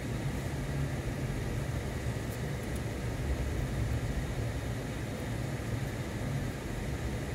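A moving car's steady low engine and road rumble, heard from inside the car.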